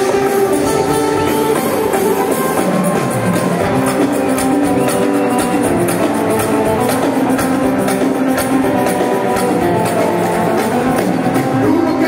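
Indian fusion rock band playing live, amplified through the PA: guitars over drum kit and percussion, with cymbal or shaker ticks running through, steady and loud.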